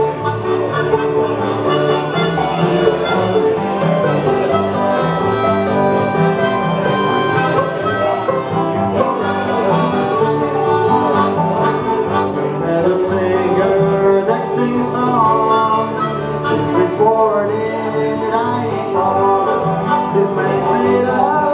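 A live acoustic bluegrass band playing a tune, with harmonica over five-string banjo and acoustic guitar strumming.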